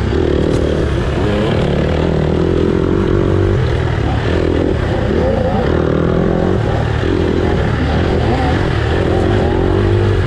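Dirt bike engines running hard, their pitch rising and falling over and over as the throttle opens and closes.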